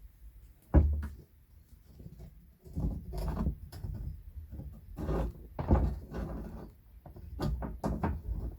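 Irregular knocks, scrapes and clatter, with a sharp heavy knock about a second in.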